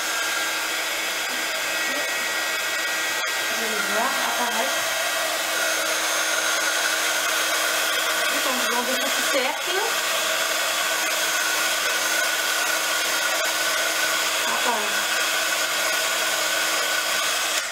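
Embossing heat gun running steadily, blowing hot air with a constant motor whine to melt embossing powder on card. It is noisy and is switched off at the very end.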